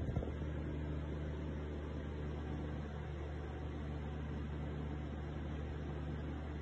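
A steady low hum, unchanging throughout.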